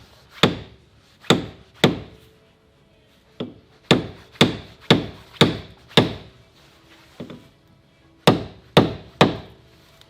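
Hammer blows on metal, about a dozen hard strikes in short runs roughly half a second apart, each with a brief ring, knocking a stuck front suspension part loose.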